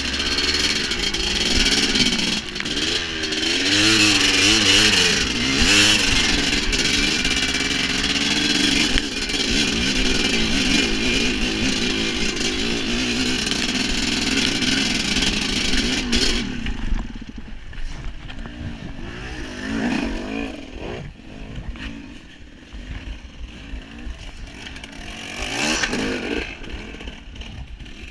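Dirt bike engine revving up and down under load on a rough trail. About sixteen seconds in it drops to low revs and gets much quieter, with two short revs later on.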